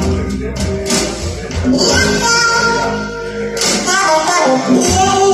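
A song with guitar and singing, played back through hi-fi loudspeakers driven by a single-ended tube amplifier and picked up in the room by a phone's microphone.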